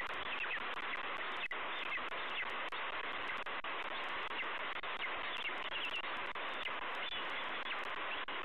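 Faint, high, chirping calls of a bald eagle in short clusters of notes, several times, over a steady hiss with faint ticks.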